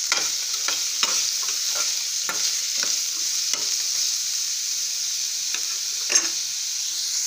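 Mixed vegetables sizzling in oil in a stainless steel kadai while a spoon stirs them, scraping against the pan. The strokes come about two a second for the first few seconds, then pause, with one sharper scrape about six seconds in.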